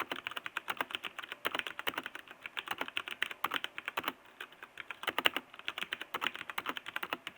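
Typing on a mechanical keyboard with Cherry MX Brown tactile switches: a fast, irregular run of key clicks with a couple of brief pauses.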